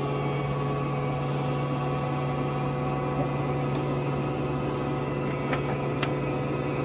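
LeBlond Regal Servo Shift engine lathe running with a steady hum. A few light clicks come near the end as the apron levers are worked.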